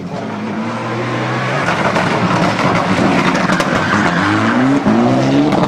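Mitsubishi Lancer Evolution X rally car's turbocharged four-cylinder engine run hard through a tarmac corner, with a loud rush of tyre noise in the middle. The engine note climbs twice near the end as it accelerates away through the gears.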